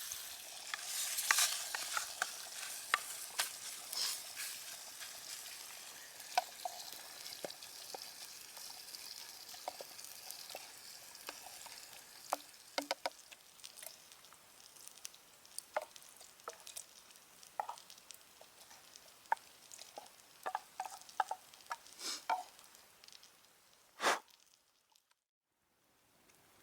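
Food sizzling as it fries in a German M31 mess tin over a campfire, with scattered clicks and crackles throughout; the sizzle slowly dies down. A sharp click comes near the end, then it goes nearly silent.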